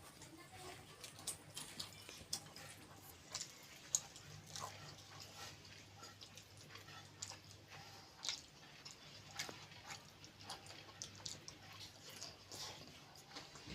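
Close-up sounds of a person eating kheer and puri: wet chewing and small mouth clicks and smacks, coming irregularly several times a second, over a faint steady low hum.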